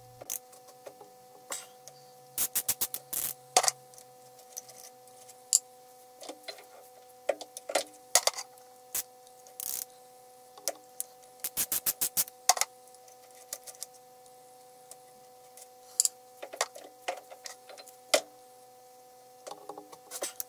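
Light metallic clicks and taps from a small hand tool undoing the screws that hold a four-jaw chuck to its backplate, some in short quick runs of about seven clicks a second, over a faint steady hum.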